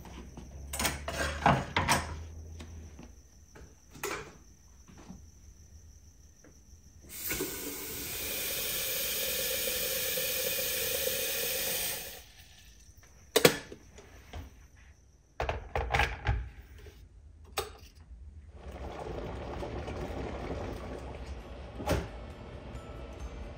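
Kitchen tap running steadily for about five seconds, filling an electric kettle, with scattered clicks and knocks of things being handled on the counter before and after.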